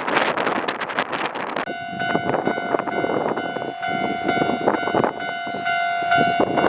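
A test train's horn sounding one long steady note for about five seconds, starting about a second and a half in, over gusty wind noise on the microphone.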